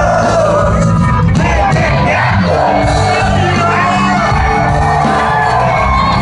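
Live country band playing loud through a concert PA, with a male lead vocal singing over steady bass and drums, and the crowd shouting and whooping along.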